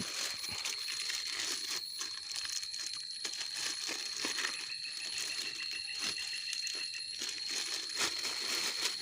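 Crickets chirping in a continuous high trill, with a second, lower-pitched insect trill joining for a few seconds in the middle, and scattered small clicks.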